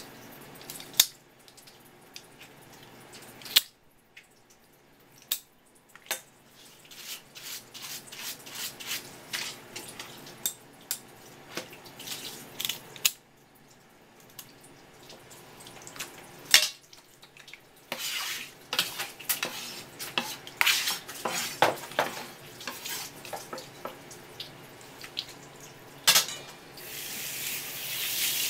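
Kitchen shears snipping and cracking through swimming crab shell: many sharp clicks and crunches, busiest a little past the middle, over a thin trickle of tap water. Near the end a faucet spray hose is opened and water rushes out steadily.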